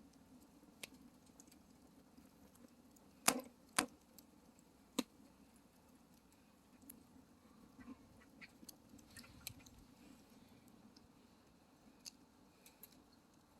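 Wood fire crackling, with scattered sharp pops; three louder pops come about three to five seconds in.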